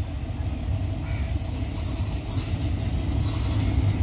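Diesel-electric locomotive approaching with its passenger train: a steady low engine rumble that grows louder, with short hissing noises about two seconds in and again near the end.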